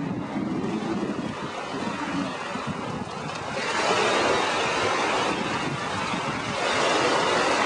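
Small surf breaking and washing up the beach, swelling twice, about halfway through and near the end, with wind buffeting the microphone.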